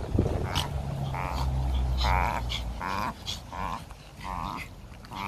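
Pomeranians barking: a run of about five short, high barks roughly a second apart, over a low rumble that fades out about halfway through.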